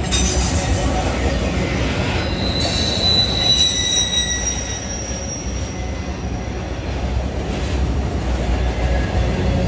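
Freight train of enclosed autorack cars rolling past, steel wheels rumbling on the rails, with high-pitched wheel squeals that come and go, strongest in the first half.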